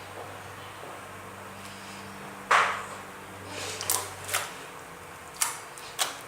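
Slime being squeezed and played with by hand: a loud squelch about two and a half seconds in, then a few short, sharp clicking pops.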